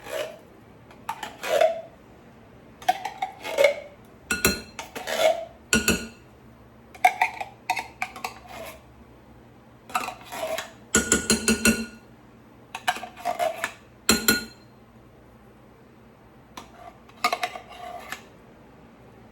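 A utensil scraping and knocking inside a tin can of condensed cream of chicken soup to empty it into a dish, in repeated short bouts of scraping strokes with brief pauses.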